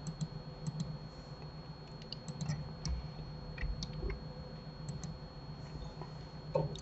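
Irregular computer mouse clicks and keyboard keystrokes, a dozen or so scattered sharp clicks, over a steady low electrical hum and a faint high whine.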